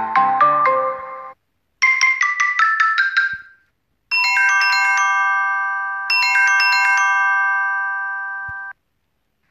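Samsung Galaxy S7 ringtones previewed in turn, with short silences between them: a note melody that stops about a second in, then a quick falling run of high bell-like notes, then a ringing chord struck twice about two seconds apart that dies away.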